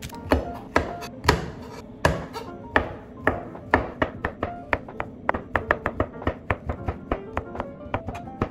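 A chef's knife slicing shiitake mushrooms on a plastic cutting board, the blade knocking on the board. The cuts come about twice a second at first and quicken to faster runs about halfway through, with background music throughout.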